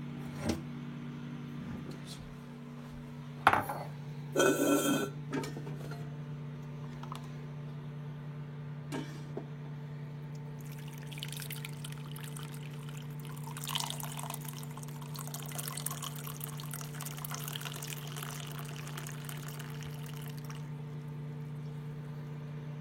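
A coffee maker running with a steady hum. About three and a half seconds in there is a click and a brief clatter, and from about ten seconds in coffee streams and splutters into a cup for roughly ten seconds.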